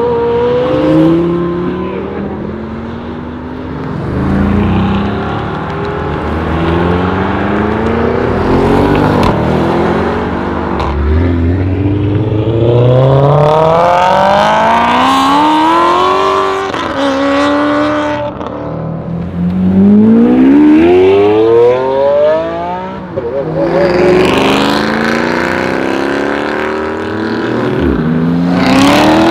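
Supercar engines accelerating hard, loud throughout: the engine note climbs steeply in pitch, drops at each upshift and climbs again, repeated through several gears and runs.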